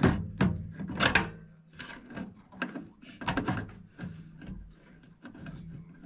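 Metal side cutters rubbing and clicking across the two metal terminals of a microwave oven's high-voltage capacitor to short it out. It is a series of irregular scrapes and clicks with no spark or bang, a sign that the capacitor is already discharged.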